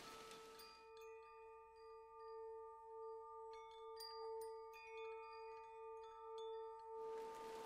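Soft ambient relaxation music: held bell-like tones with high wind-chime pings over a low note that pulses gently about twice a second. A rain-like hiss fades out about a second in and returns near the end.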